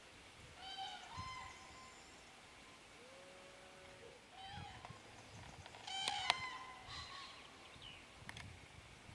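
Common cranes calling: several short bouts of pitched, trumpeting calls a few seconds apart. Two sharp clicks come close together about six seconds in.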